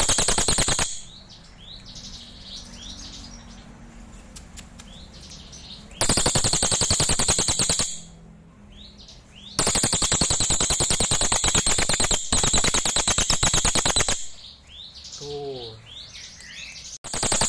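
Crested jay (cililin) giving loud, very rapid machine-like rattles in repeated bouts: one ending about a second in, another about six seconds in lasting two seconds, a longer one of about four and a half seconds from about ten seconds, and a new one starting near the end. Faint short rising chirps fill the gaps between bouts.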